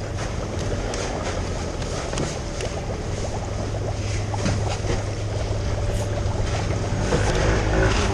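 Seafood market ambience: a steady low hum under a general wash of background noise, with scattered faint clicks and knocks, and faint distant voices near the end.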